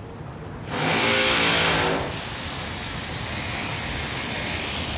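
A loud burst of motor-vehicle noise, a steady hum under a hiss, starts a little under a second in and cuts off about a second later. A steady background noise follows.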